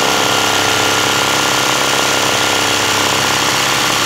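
Zigzag sewing machine running steadily at speed, stitching a dense satin stitch as the hooped fabric is guided by hand.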